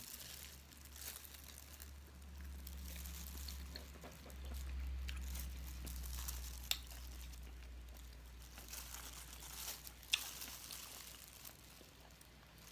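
A person chewing and crunching food close to the microphone, with scattered small crackles and a couple of sharp clicks, over a steady low hum.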